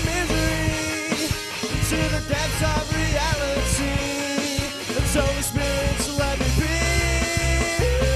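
Punk-leaning rock band music: drum kit and electric guitar under long held notes, with a steady beat.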